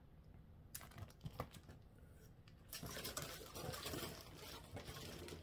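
Rustling and crinkling of cross-stitch chart packets in clear plastic sleeves being handled. A few light taps come first, then denser crinkling from about three seconds in.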